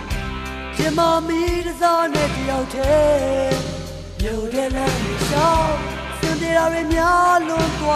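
A pop-rock song: a singer's voice holding and gliding between notes over a band with bass and regular drum beats.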